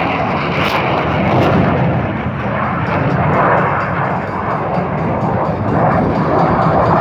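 Thunderbirds F-16 fighter jets' engines running with a loud, steady roar as the team starts up.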